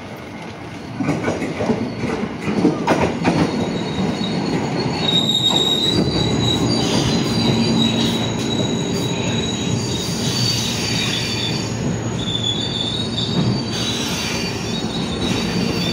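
A JR 203 series electric commuter train runs along the platform close by, its wheels clacking over the rail joints. About five seconds in, a high-pitched wheel squeal sets in over the rumble and keeps going as the cars slide past.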